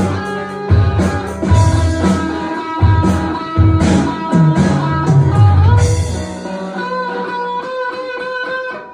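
Electric guitar played: Stratocaster-style, with rhythmic low chords for about the first six seconds, then thinner, held higher notes.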